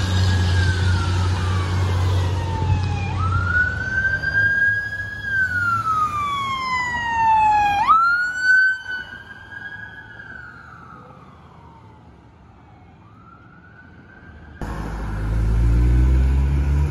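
Electronic wail siren on a responding fire-department SUV, sweeping slowly up and down about every three seconds. Its pitch jumps as the vehicle passes about halfway through, and it then fades away. Near the end, after an abrupt change, a low heavy engine rumble builds.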